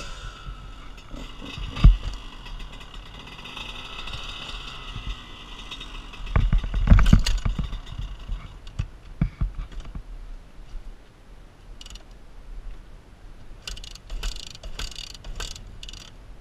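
Dirt bike engine running at steady revs, then fading out about six seconds in, followed by a cluster of heavy thumps and later some short sharp hissy noises.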